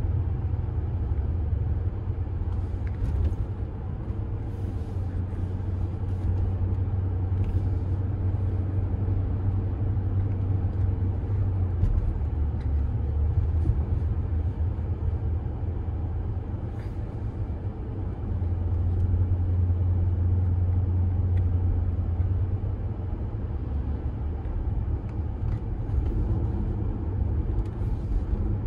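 Inside the cabin of a 2001 BMW 740i on the move: a steady low rumble of road and tyre noise with the 4.4-litre V8 running under it. The rumble grows louder for a few seconds about two-thirds of the way in.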